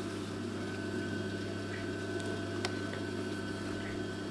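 Singer 31K15 industrial sewing machine running with a quiet, steady motor hum, with a single click about two and a half seconds in.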